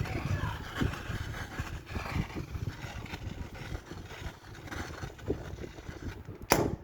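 Gas brazing torch flame burning with a low rumble while its needle valve is shut down, ending in one sharp pop as the flame goes out about six and a half seconds in.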